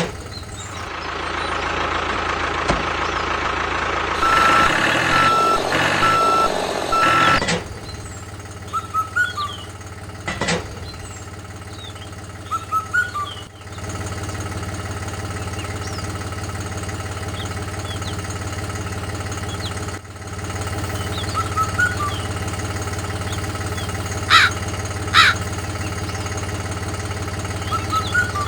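Small motor of a DIY mini model tractor running with a steady low hum. Louder, noisier running comes in the first few seconds, with a run of short, evenly spaced beeps in the middle of it, and a few sharp clicks follow later.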